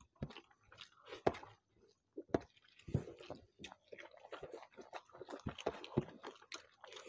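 Close-up eating sounds of two people eating rice and chicken curry by hand: wet chewing and mouth smacks mixed with the squish of fingers working rice and curry on the plates, coming as irregular short clicks and smacks.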